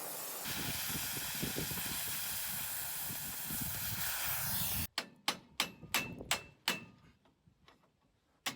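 Cutting torch hissing steadily as it burns off a bolt head that would not tighten, stopping suddenly about five seconds in. A run of sharp metallic knocks follows, about three a second, then a short pause and more knocks at the end.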